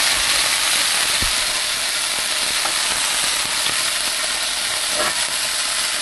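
Beef Denver steak sizzling steadily in hot oil in a frying pan.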